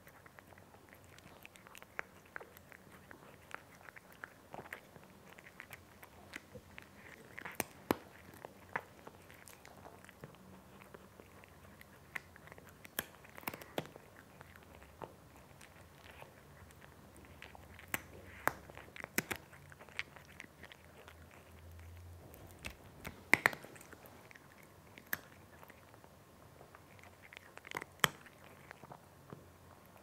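A cat eating dry kibble: irregular crunching and chewing, with a few crunches much louder than the rest.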